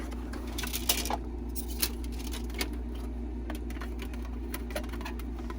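Light, irregular clicks and knocks of makeup-organizer parts being handled and fitted together during assembly, the sharpest around one second in, over a steady low hum.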